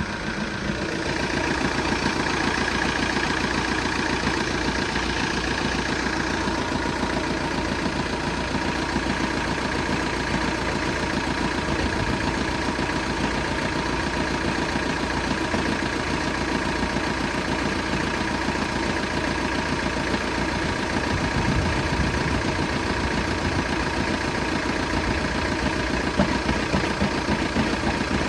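Engine idling steadily with a fast, regular knocking, the noise the owner is recording as a fault.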